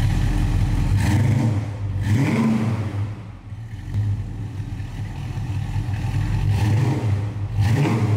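The Holden HK Monaro GTS's 327 V8 idling with a deep, lumpy note, blipped up in revs twice, about two seconds in and again near the end.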